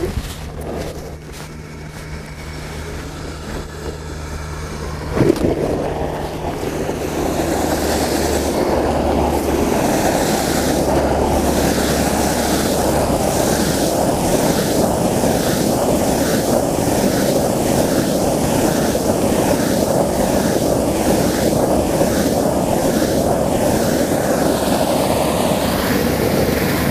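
A fire hydrant opened fully, its water bursting through a 2.5-inch Hose Monster flow diffuser with a sudden surge about five seconds in, then rushing out in a loud, steady spray for a full-flow fire flow test.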